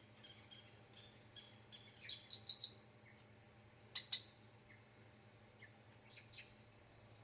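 Bird calls: a run of short, high chirps, with louder clusters about two seconds in and again at four seconds, then a few faint chirps near the end.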